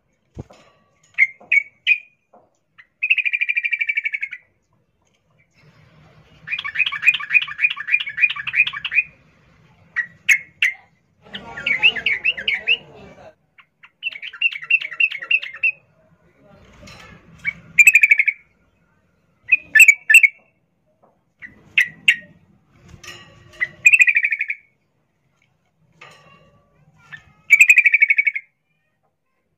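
Female yellow-vented bulbul calling in breeding condition to draw a male. Her call comes as repeated bursts of fast, rattling notes, each about one to two and a half seconds long, with short single chirps between the bursts.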